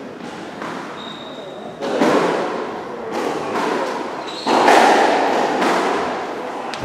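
Dull thuds echoing in a large hall, with voices murmuring in the background; two louder ones start suddenly, about two seconds in and near the middle.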